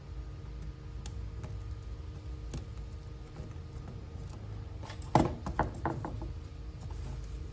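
Handling noises from working on a window screen: a few faint scattered clicks, then a quick cluster of sharp clicks and knocks about five seconds in, over a low steady rumble.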